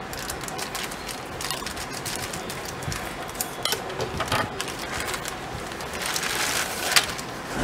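Scissors snipping through a plastic courier mailer, then the scissors set down on the desk and the plastic bag crinkling as it is pulled open, loudest near the end.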